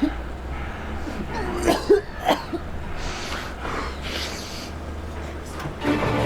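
A person's short, sharp vocal outbursts, like coughs or a sneeze, about two seconds in, followed by a breathy rush of air. Orchestral music starts near the end.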